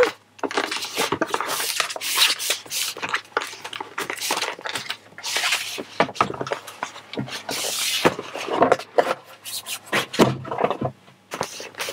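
Large cardboard presentation box being opened and a fabric dust bag rustling as it is lifted out of the box: irregular scraping and rustling of cardboard and cloth, louder in a few bursts.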